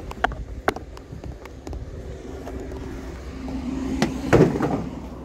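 Vehicle driving, with a steady low rumble, a few sharp clicks and rattles, and a louder swell about four seconds in.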